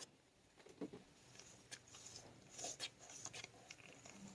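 Faint, irregular clicks and scrapes as the oil filter housing cap is worked loose on a BMW N20 engine.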